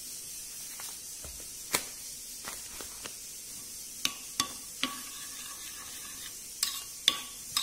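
Scattered sharp clicks and taps on a bowl, a few with a brief ringing tone, as dried mint leaves are crumbled from a packet into a bowl of raita, over a steady faint hiss.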